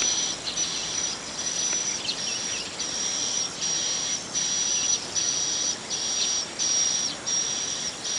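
An insect chirring in a steady run of high, shrill pulses, each about half a second long, roughly one and a half a second.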